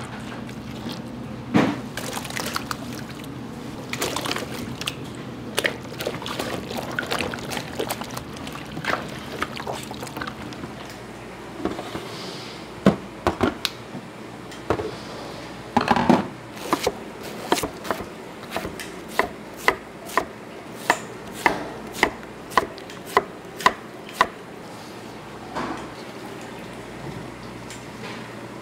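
Kitchen food-preparation sounds: wet splashing and pouring mixed with scattered sharp knocks, then an even run of knocks about two a second in the second half.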